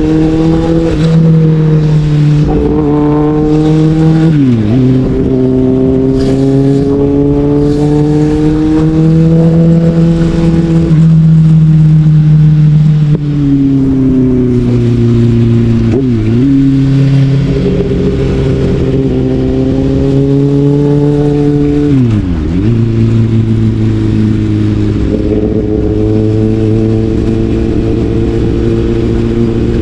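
Sportbike engine pulling at moderate revs, its note rising and falling gently through the bends. Three times the engine note drops sharply and recovers within a fraction of a second.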